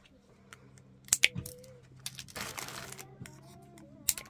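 Tin snips cutting through plastic spoon handles: sharp snaps about a second in and again near the end, with a plastic bag crinkling in between.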